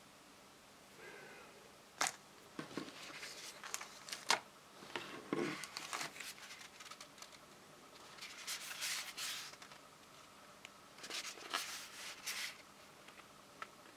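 Handling noise while unpacking a cardboard box: irregular light knocks, clicks and short rustling scrapes of cardboard, cable and packaging, in scattered bursts over a faint steady hum.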